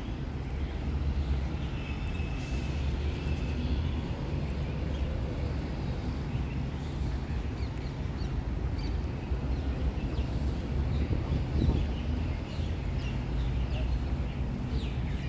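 Outdoor ambience: a steady low rumble, with small birds chirping over it, the chirps more frequent in the second half.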